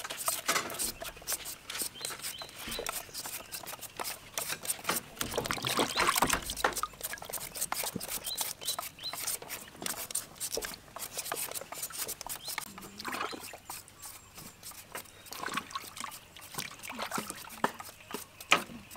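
Hand vegetable peelers scraping the skins off raw potatoes in quick, irregular strokes, with water dripping and splashing in a basin of washing water.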